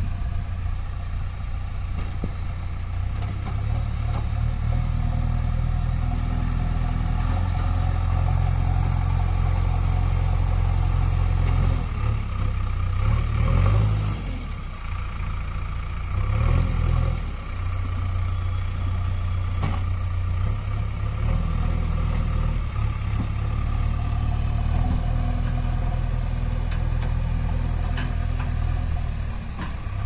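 JCB backhoe loader's diesel engine running steadily as the machine works, its note swelling twice about halfway through.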